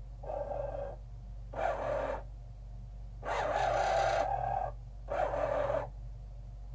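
Excalibur Phantom Force chess computer's under-board magnet carriage motors whirring in four short runs, the third and longest lasting about a second and a half, as the machine slides a white pawn to a6 to make its capture.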